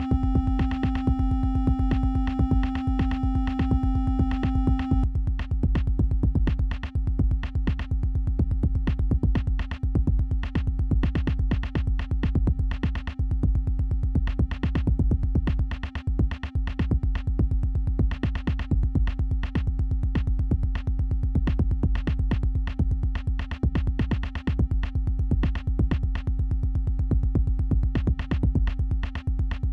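Electronic music from a VCV Rack software modular synthesizer patch: a fast, steady drum-machine pulse over a deep bass, with a held synth tone underneath. A brighter upper layer of the held tone cuts off about five seconds in, and the beat and lower drone carry on.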